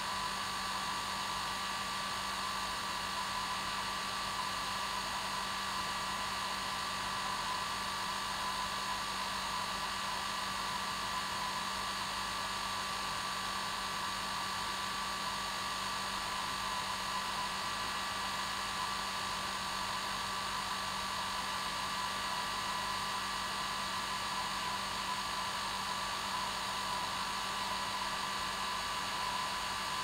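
Hair dryer running steadily: a constant rush of blown air with a steady motor whine and hum, never changing in speed or level.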